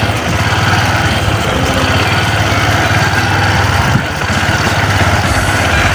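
Motorcycle engine running steadily at low speed while being ridden, with a brief dip in loudness about four seconds in.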